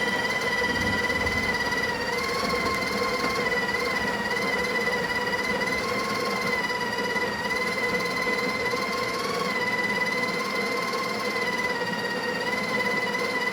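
Breville Barista Express espresso machine running: a steady mechanical hum with a constant pitch.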